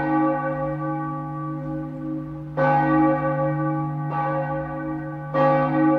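A bell ringing with a long, slowly fading tone, struck again three times, about two and a half seconds in, at four seconds and near the end.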